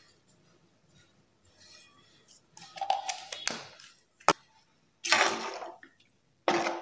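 Metal ladle stirring a thin curry in a metal pan: a few bursts of scraping and sloshing starting a few seconds in, with one sharp clink of the ladle against the pan.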